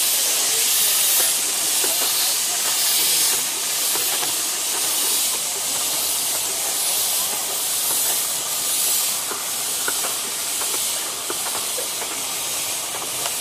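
Steady loud hiss of steam from a 15-inch-gauge steam locomotive pulling away, the steam escaping at the front of the engine as from open cylinder drain cocks. Its passenger coaches roll past with light clicks of wheels over the rails.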